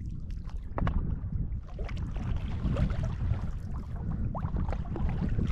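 Wind rumbling on the microphone over the splash and drip of a paddle dipping into shallow water beside a stand-up paddleboard.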